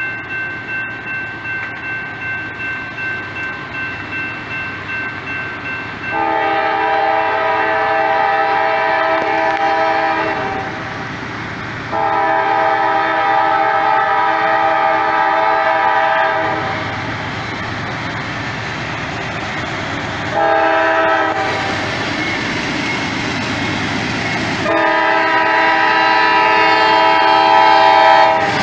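Grade-crossing bell dinging about twice a second. Then a Norfolk Southern GE AC44C6M locomotive's Nathan K5LA five-chime air horn blows the crossing signal: long, long, short, long. Between blasts the GE diesels run loud at high throttle as the train pulls slowly.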